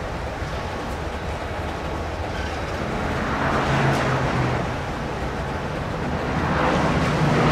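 Steady city traffic rumble, with vehicles swelling past about four seconds in and again near the end, and a low hum joining about three seconds in.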